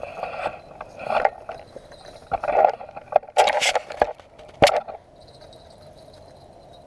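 Footsteps crunching over gravel and dry leaves, mixed with scrapes and knocks of a hand-held camera being carried, in uneven steps about every half second; they stop about five seconds in.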